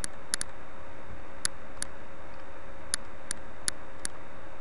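Computer mouse buttons clicking: about nine short, sharp clicks at uneven intervals, with a quick double click just after the start, over a steady low hiss.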